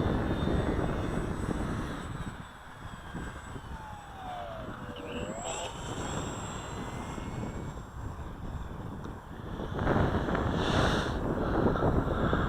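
Electric RC model plane (Max Thrust Riot) flying in gusty wind, its motor whine dipping and rising in pitch through the middle. Wind buffets the microphone throughout and gets louder near the end.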